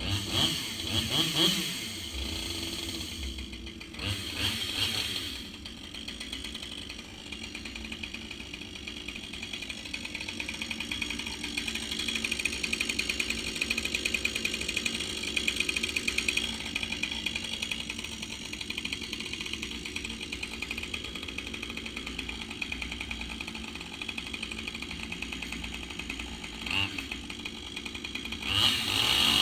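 Husqvarna 572 XP two-stroke chainsaw starting with a quick rev, then idling steadily, and revving up near the end.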